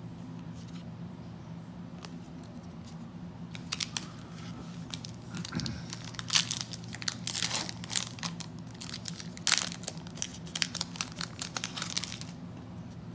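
Foil wrapper of a trading-card pack crinkling and tearing as it is opened by hand, in irregular crackles starting about three and a half seconds in and stopping shortly before the end.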